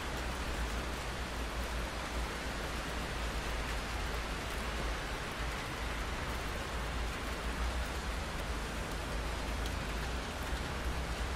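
Steady rain falling, an even hiss with fine drop ticks and a constant low rumble beneath it.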